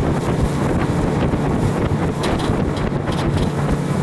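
Wind buffeting the microphone on a moving aluminium river boat, over the steady drone of the boat's motor.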